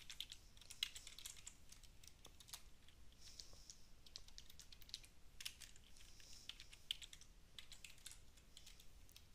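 Faint typing on a computer keyboard: runs of irregular keystrokes with short pauses between them.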